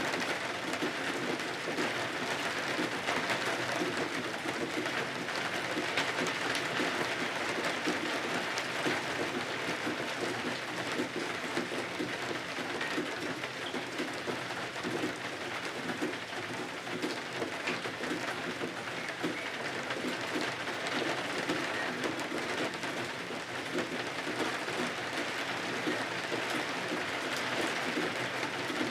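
Steady rain falling, a dense even patter that keeps up without change.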